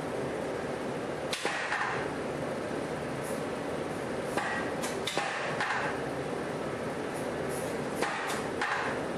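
Compressed-air power hammer (the KZ100) striking steel bar stock on its die: about seven blows in three short groups, each a sharp impact with a brief ring, over a steady background noise.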